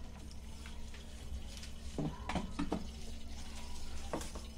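A hand mixing and rubbing a thick spice masala against a ceramic plate, with a few short scraping strokes around two seconds in and again near the end, over a steady low hum.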